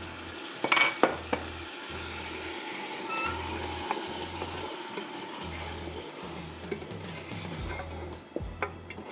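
Wooden spoon stirring a spice masala of ginger-garlic paste, ground almonds and onion in a pressure-cooker pot, over a steady sizzle of the masala frying. A few sharp knocks of the spoon against the pot come about a second in, with more clicks near the end.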